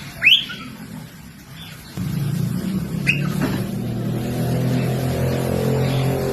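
Cockatiel giving two sharp chirps, the first and loudest just after the start and a shorter one about three seconds later. A steady low hum comes in about two seconds in and carries on underneath.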